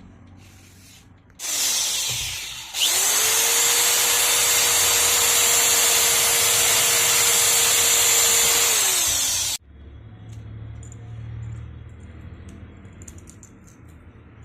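Small high-speed rotary tool (mini drill or grinder) cutting a circuit board. It gives a brief burst, then spins up and runs steadily for about seven seconds with a high whine, slowing near the end and cutting off suddenly.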